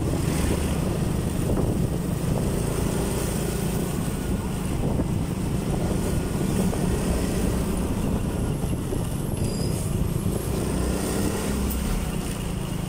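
Steady rumble of a motorcycle running along a road, with wind buffeting the microphone and the noise of surrounding traffic, heard from the moving bike.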